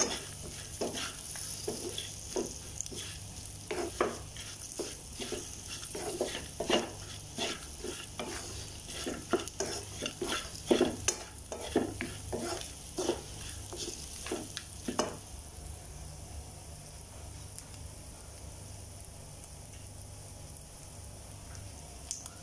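A spatula scrapes and knocks against a metal pan as fried chicken pieces in masala are stirred, with a steady sizzle of frying underneath. The stirring strokes stop about fifteen seconds in, leaving only the sizzle.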